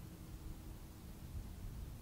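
Quiet background between siren messages: a faint low rumble with a faint steady hum, no siren sounding.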